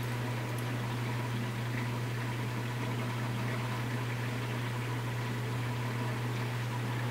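Reef aquarium's pumps and circulating water running: a steady low hum over an even hiss.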